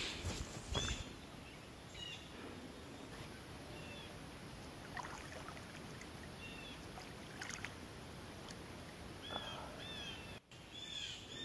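Quiet lakeshore ambience: faint splashing of a person swimming in the lake, with a few short bird chirps scattered through.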